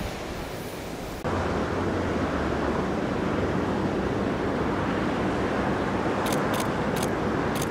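Steady wash of surf and wind, following a sudden cut about a second in from the fading sound of a train that has just passed. Several short, high-pitched chirps come near the end.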